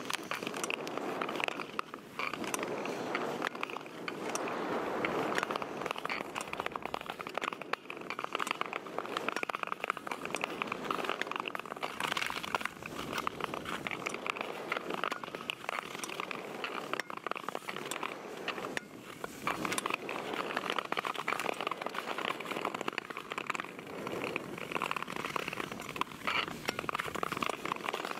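Steel ice-skate blades scraping and gliding over natural ice, a continuous crackling rasp.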